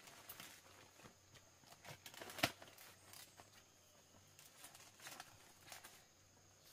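Quiet rustling of leaf litter and twigs with scattered small snaps, one sharper snap about two and a half seconds in.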